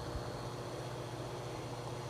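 Marrima wall fan running steadily: an even low motor hum under a soft rush of air.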